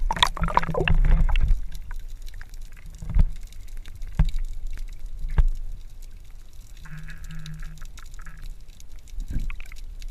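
An action camera going under the water with a splash. What follows is muffled underwater sound heard through its waterproof housing: a steady low rumble with a few sharp knocks.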